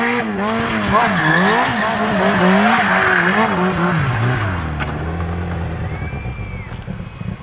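Sport bike engine revving up and down in quick throttle swings during a donut, with tyre squeal over it. About four seconds in, the revs drop and it settles to a low, steady idle.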